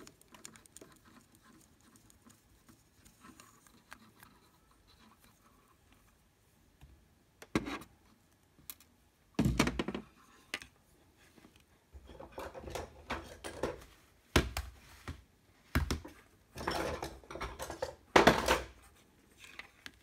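Plastic handling clicks and knocks from a TV's IR receiver/control-button module and its housing being handled against the set's metal back panel. Almost quiet at first, then an irregular run of sharp clicks and taps, with the loudest knocks near the end.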